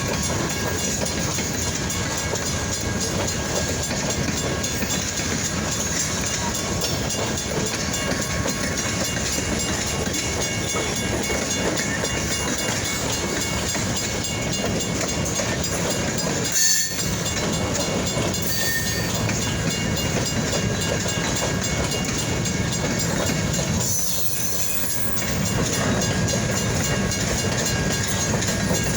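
Freight train rolling past on the track, a steady rumble with wheels clacking over the rail joints. A single sharp knock sounds about two-thirds of the way through.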